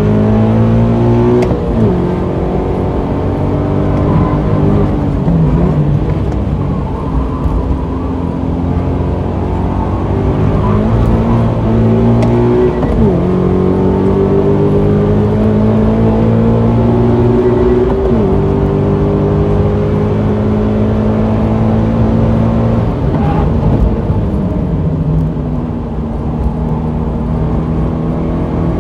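2016 Subaru BRZ's 2.0-litre flat-four engine, heard from inside the cabin, driven hard on a race track. The revs climb in long steady rises and drop back sharply at each gear change or lift, about five times.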